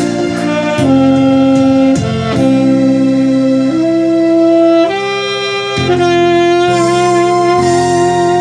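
Tenor saxophone playing a slow melody in long held notes, each a second or more, the last one held with a gentle vibrato.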